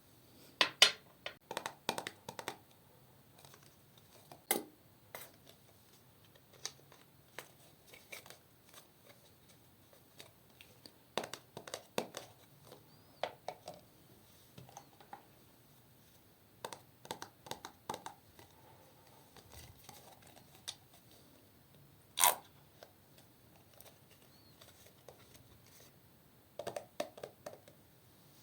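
Slime being squished and worked with makeup mixed in, giving clusters of sharp clicky crackles and pops with short pauses between, and one louder snap about two-thirds of the way through.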